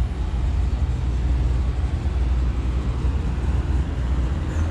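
A car engine idling: a low, steady rumble.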